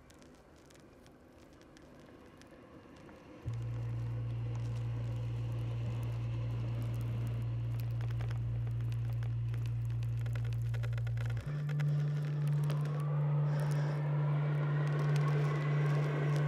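Opening of an electronic music track: faint crackle, then a held low synth bass note entering suddenly about three and a half seconds in. Near the end it steps up to a higher note while a synth chord swells in over it.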